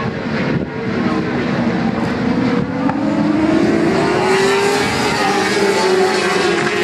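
A pack of racing superbikes on the first lap, engines revving hard and growing louder as the field approaches, with an engine note rising in pitch about halfway through.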